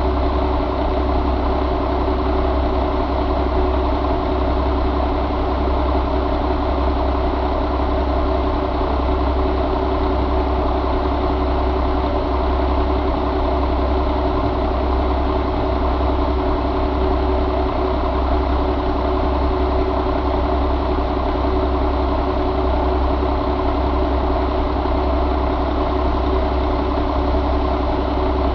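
2006 Mack E7 inline-six diesel engine idling steadily, with an even low rumble and no change in speed.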